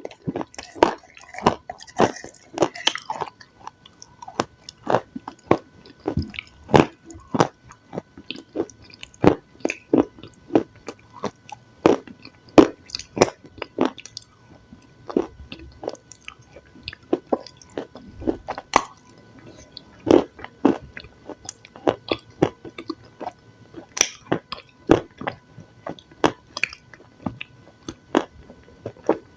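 Close-miked chewing of food: wet smacks and mouth clicks come in an uneven rhythm of about one to two a second, crackliest in the first few seconds.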